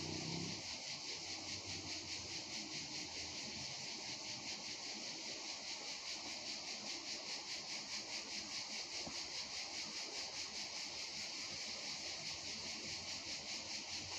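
Steady, high-pitched insect chorus, pulsing about four times a second, with a faint low rumble that dies away in the first half second.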